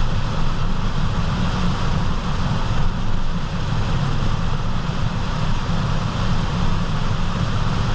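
Steady low road roar in the cabin of a 2014 Mercedes-Benz GL350 driving down the road: the loud roaring noise the owner is troubleshooting as either a tire and alignment problem or a wheel bearing.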